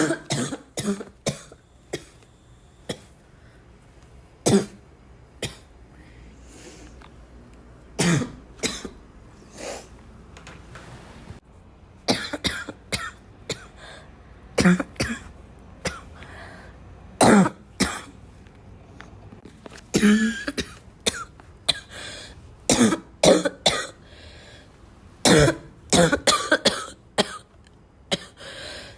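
A person coughing over and over: single coughs and quick runs of two to four coughs, with pauses of about a second to a few seconds between them.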